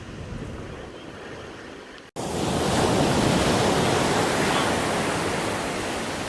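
Ocean surf washing and breaking at the shoreline, with wind on the microphone. The sound cuts out for an instant about two seconds in and comes back louder, as the surf comes in closer.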